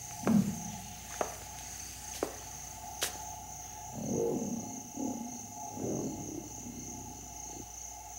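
Steady insect chirring of an African veldt soundscape, with a few sharp clicks in the first three seconds and some rough, low sounds between about four and six and a half seconds in.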